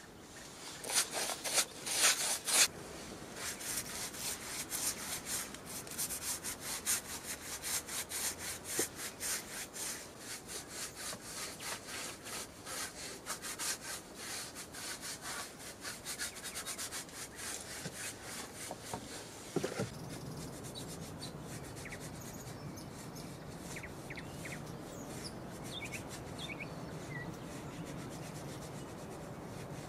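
Repeated rubbing or scraping strokes of a hand tool on wood, about two a second, loudest in the first few seconds. They stop with a single knock about two-thirds through, leaving a steady quieter background.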